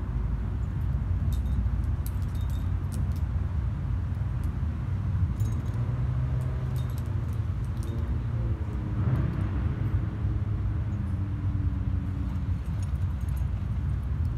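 Light metallic clinking of climbing gear (carabiners and cams on a rack) in a few short spells over a steady low rumble.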